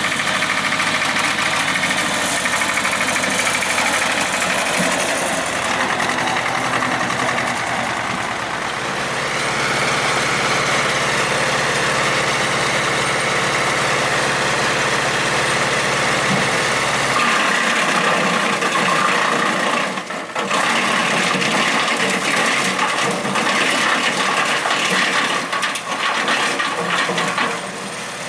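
PTO-driven wood chipper (Remet RT 630) running off a tractor, with a steady loud mechanical noise. About two-thirds of the way through the sound changes abruptly to irregular sharp knocks and cracks, as of wood going through the chipper.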